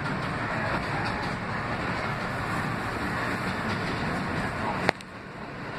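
R160B subway train running on elevated track, heard from inside the car: a steady rumble and hiss of wheels on rails. Near the end a single sharp click, after which the noise drops for a moment and builds again.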